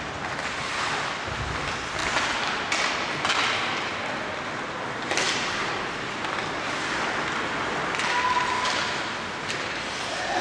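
Ice hockey skates scraping and carving the ice, with several sharp clacks of sticks striking the puck.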